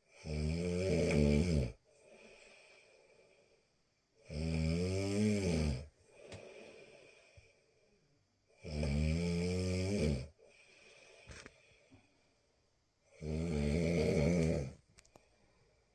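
A person snoring in deep sleep: four loud, pitched snores, each about a second and a half long and coming roughly every four and a half seconds, with quieter breaths between them.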